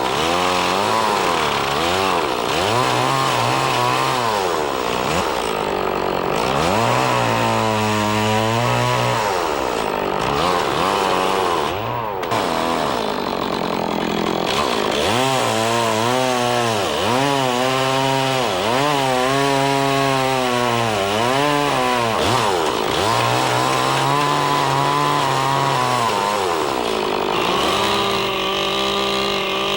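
Chainsaw cutting a round saddle notch in a log, its engine speed rising and falling over and over as the cutter works the saw through short sweeping passes. Near the end the engine holds a steady pitch.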